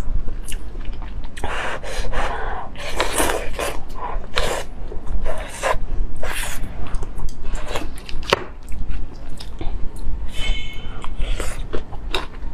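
Close-miked slurping of noodles from a paper cup, in loud sucking pulls of air and broth, with wet lip smacks and chewing clicks in between.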